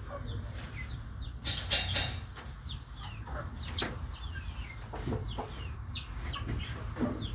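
Domestic chickens clucking, with many short, high, falling calls throughout. A brief rustling clatter comes about one and a half seconds in.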